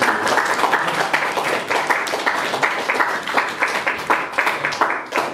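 A small group of people applauding, with many quick, overlapping hand claps.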